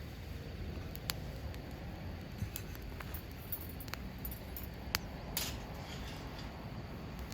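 Wood campfire crackling, with a few sharp, irregular pops over a low steady rumble.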